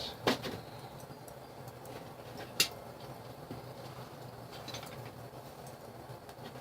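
Electric forge blower running steadily with a low hum and rushing air, broken by a few sharp clicks, the loudest about two and a half seconds in.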